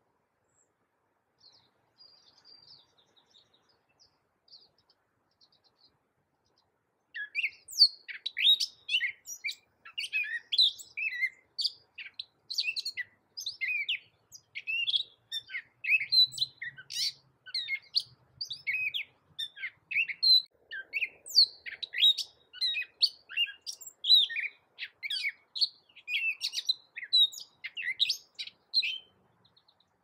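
Gray catbird singing: a few faint scattered notes, then from about seven seconds in a long, fast, jumbled run of short, varied notes that stops just before the end.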